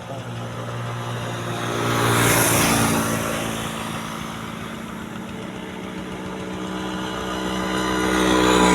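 Road traffic: engines running and vehicles passing close by, one swelling past about two seconds in and another near the end, over a steady engine hum.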